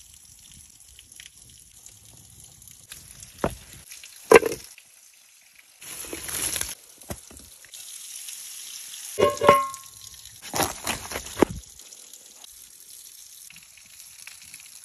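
Anchovy rolls sizzling in a clay dish, with a steady high hiss. Several sharp knocks and scrapes of clay being handled, and a short ringing clink about nine and a half seconds in, as the clay lid is set onto the dish.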